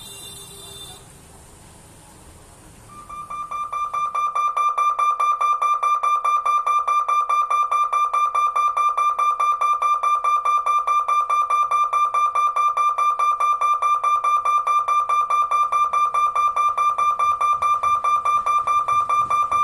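Level-crossing warning bell ringing rapidly and steadily, about six strikes a second on one clear pitch. It starts about three seconds in and signals that the barrier is closing for an approaching train.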